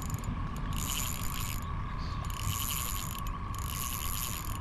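Fishing reel being cranked in short runs, a whirring with fine rhythmic clicking and brief pauses between runs, as a hooked redear sunfish is reeled in. A steady faint high whine runs underneath.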